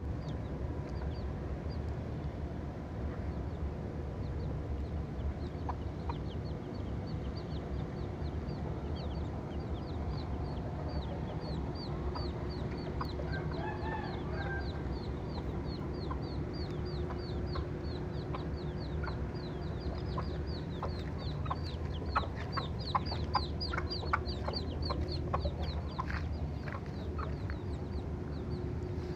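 Outdoor ambience with low wind rumble on the microphone and a quick run of high, thin chirps. A short bird call comes about halfway through, and a cluster of sharp clicks follows later.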